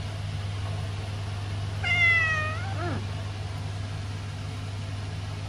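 A domestic cat gives one long meow about two seconds in, its pitch sliding gently downward and then dropping at the end.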